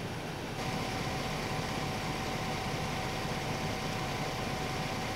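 Police cruiser's engine idling with a steady low hum and a thin steady whine over it. It starts abruptly about half a second in, after a short stretch of hiss.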